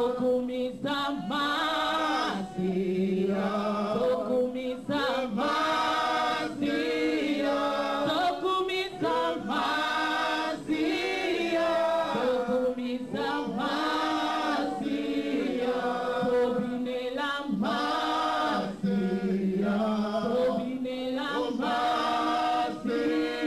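A congregation of men and women singing together in long sustained phrases.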